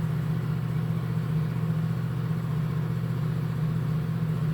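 Steady low machine hum that holds one pitch with no change in level.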